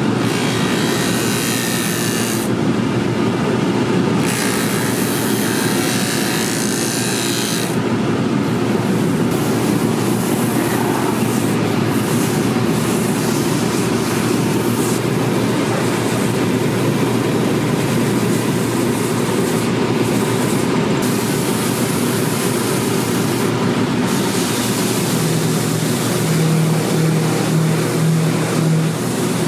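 Shoe finishing machine running while a leather boot is held against its spinning sanding discs and wheels: a steady motor drone with rough abrasive rubbing, changing abruptly at several points.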